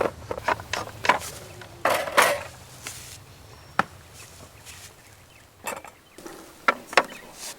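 Irregular sharp knocks and clacks of wood and camp cookware being handled, a handful of separate strikes with quiet gaps between, the loudest about two seconds in.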